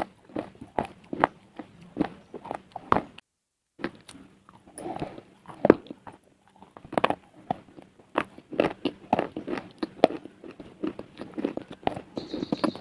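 Crunching bites and chewing of pieces of edible slate, a fast run of sharp, dry crunches. It breaks off for a moment about three seconds in, then carries on.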